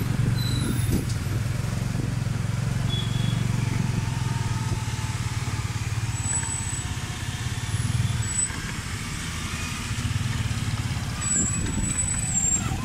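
Motorcycle engine of a tuk-tuk running steadily under way in slow street traffic, heard from the towed passenger carriage, easing off briefly about two-thirds of the way through.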